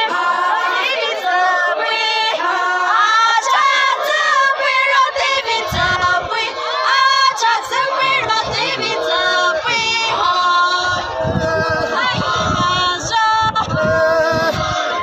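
A group of villagers singing a traditional folk song together, unaccompanied, in a chorus of many voices. A low rumble comes and goes under the singing in the second half.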